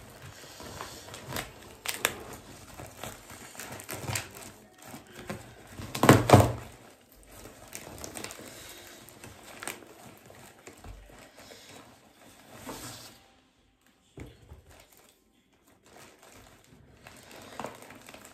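Parcel's plastic wrapping and packing tape being torn and crinkled by hand, in irregular bursts of crackling with the loudest tearing about six seconds in and a short pause a little after the middle.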